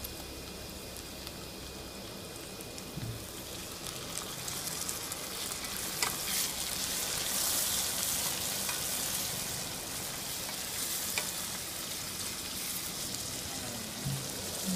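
Sliced tomatoes and onions sizzling in hot oil in a kadai while a wooden spatula stirs them, with a few light knocks of the spatula against the pan. The sizzle grows louder a few seconds in.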